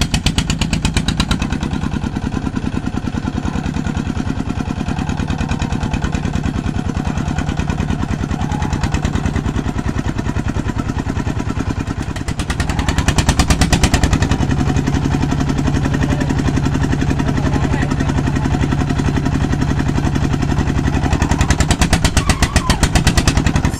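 Engine of a rice threshing machine running steadily with a fast, even pulse, a little louder about halfway through and again near the end.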